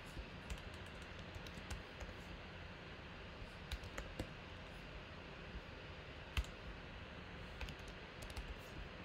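Typing on a computer keyboard: scattered key clicks at an uneven pace, with one louder click about six seconds in.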